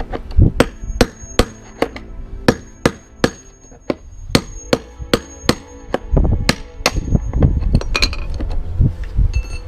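Hammer striking a steel drift bar held against a washing machine tub bearing: a run of sharp metallic knocks, roughly two a second, many with a high ringing. The blows alternate from side to side to drive out the worn bearing.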